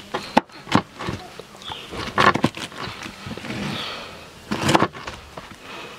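A kitchen knife cutting through peeled pineapple, the blade knocking against the cutting board several times, loudest about two seconds in and again near the end.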